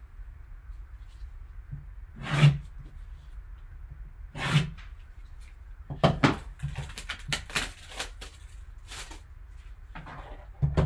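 Hands handling a sealed cardboard collectibles box. There are two soft thumps, then a quick run of clicks and taps about six to nine seconds in.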